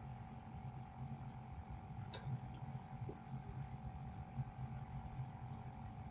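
A steady low hum with a constant mid-pitched tone over it: background electrical hum and room noise. There is a faint tick about two seconds in.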